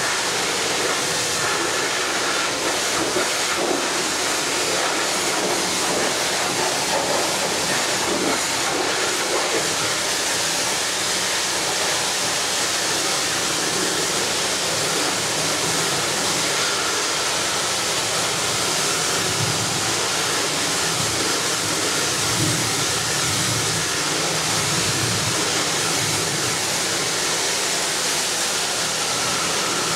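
Pressure washer spray hissing steadily as it blasts a John Deere combine harvester, with a low rumble swelling briefly about two-thirds of the way through.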